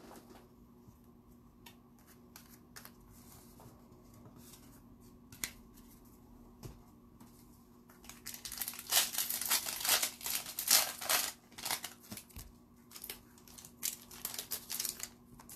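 Foil wrapper of a hockey card pack crinkling as it is torn open: a few faint ticks, then a dense run of crinkling in the second half.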